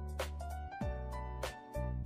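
Background music with a steady beat and sustained bass and melody notes.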